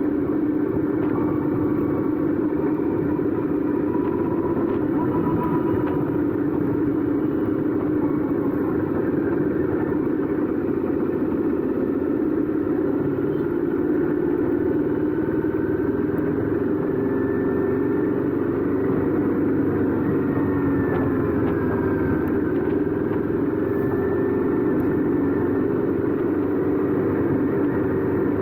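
Royal Enfield 650 parallel-twin motorcycle engine and exhaust running steadily while riding, holding an even pitch and level with no sharp revving.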